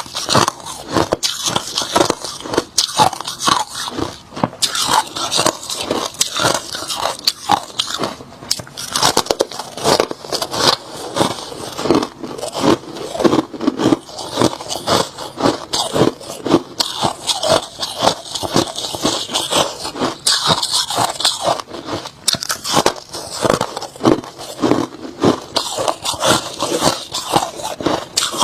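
A person biting and chewing hard crushed ice close to the microphone: a rapid, continuous run of sharp, crackly crunches.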